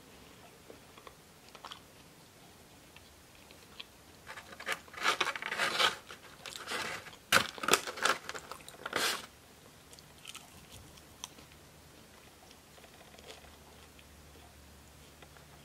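Close-miked chewing in a small room, then a few seconds of crackling, scraping and sharp clicks as food is picked out of a styrofoam takeout box.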